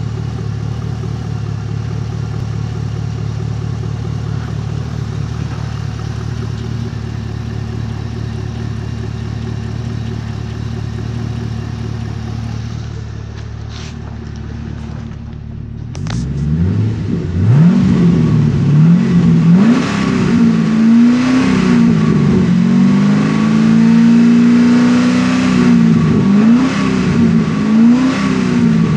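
A 2010 Holden Commodore SS ute's 6.0-litre L98 V8 petrol engine idling steadily. After a couple of clicks about halfway through, it is revved again and again, its pitch rising and falling with each rev and louder than at idle.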